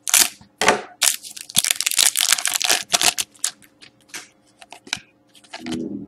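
Scissors snipping the top off a foil trading-card pack, then the foil wrapper crinkling and crackling as the cards are worked out of it, with scattered clicks of cards being handled.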